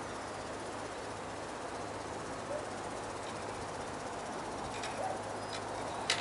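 Outdoor yard ambience: a steady background hiss with a faint low hum, broken near the end by three short, sharp high clicks or chirps.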